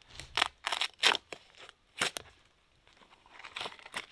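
A knife cutting birch bark, with short crunchy, tearing strokes as a sheet of bark is scored and peeled from the trunk. There are about half a dozen strokes in the first two seconds and a few fainter ones near the end.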